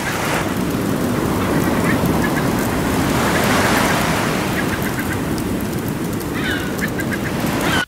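Ocean surf and rain from a sleep-sound mix, a steady wash that swells a little midway, with gulls giving short calls in the middle and a pair of falling cries near the end.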